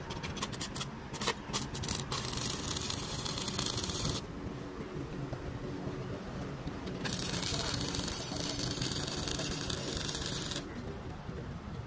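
Workshop tool noise: a quick run of clicks and knocks, then two bursts of loud, even hissing of a few seconds each that start and stop abruptly, over a low hum.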